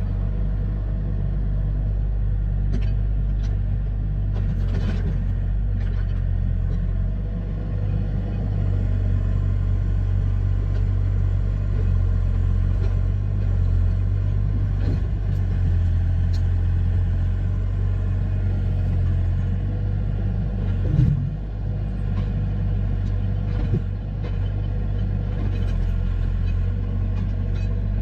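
A steady low rumble, with a few light knocks and clicks scattered through it.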